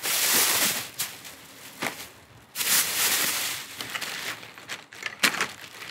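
Plastic wrapping rustling and crinkling as a rolled inflatable paddle board is pulled out of its bag, in two stretches: one right away and one about two and a half seconds in. A few short sharp knocks fall between and after.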